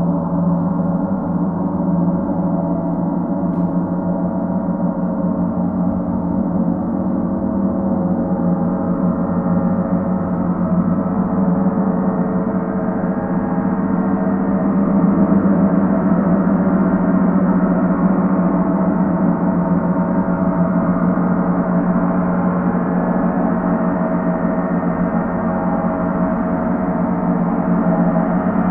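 Paiste planetary gongs sounding in a continuous, sustained wash of many overlapping steady tones, with no distinct strikes, swelling slightly about halfway through.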